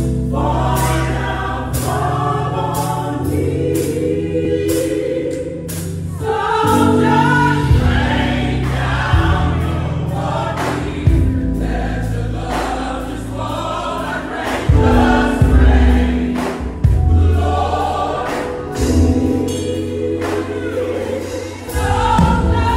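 Gospel choir singing live in full harmony, backed by a deep bass line and sharp percussion hits.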